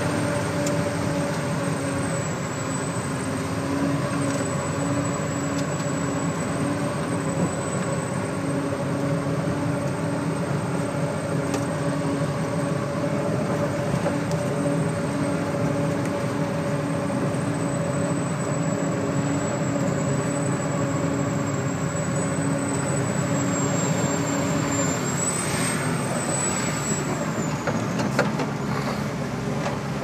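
Concrete mixer truck's diesel engine running steadily under load with a faint high whine, the engine note dropping near the end.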